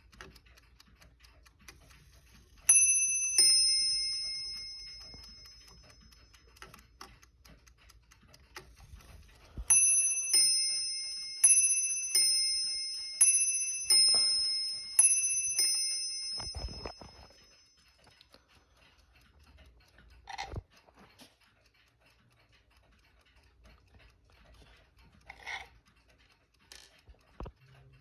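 Mauthe bim-bam mantel clock striking on two bells, each stroke a high note followed by a lower one, ringing and fading away. One pair rings about three seconds in, then a longer run of pairs starts about ten seconds in. The movement ticks steadily underneath, and a few short knocks come near the end.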